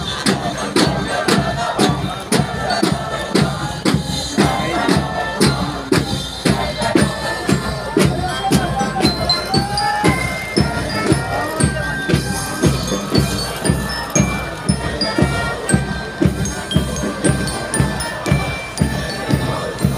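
Military marching band playing a march: a steady drum beat about twice a second under brass, including sousaphones.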